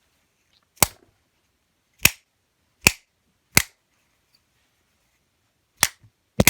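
Six sharp raps of a plastic- or rubber-faced hammer on the shackle of a Winchester six-lever padlock, unevenly spaced, with a longer gap before the last two. Each blow is meant to jar the levers back so the shackle springs open: a bypass instead of picking.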